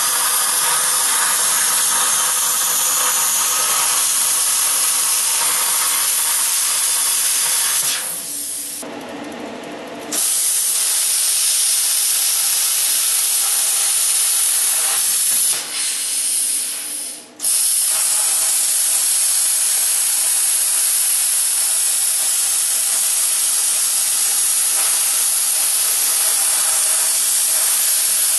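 Wire-feed welder arc running in a steady hiss as steel sheet is welded. It breaks off twice for a second or two, about eight seconds in and again around sixteen seconds, between welds.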